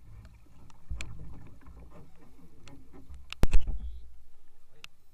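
Handling bumps and knocks in a small aluminium boat, with a low rumble from about a second in. Two sharp, loud knocks come about three and a half seconds in, and scattered clicks run throughout.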